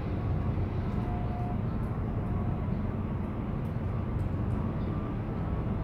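Steady low rumble of strong wind buffeting the microphone.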